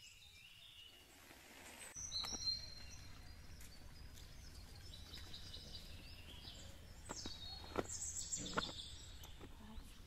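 Birds chirping and calling in short high notes, over a low steady rumble, with a few faint knocks.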